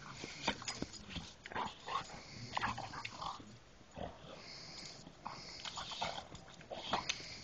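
Black Labrador retriever making short, irregular noises while play-fighting, mixed with quick clicks and knocks.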